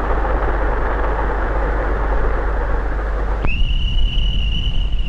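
A steady rumbling noise that cuts off suddenly about three and a half seconds in, replaced by one long, high, steady whistle.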